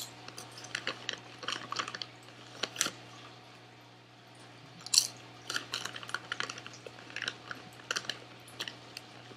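Crisp potato chips being chewed close to the microphone, a run of short, irregular crackles. About five seconds in comes a sharper, louder crunch as a fresh chip is bitten.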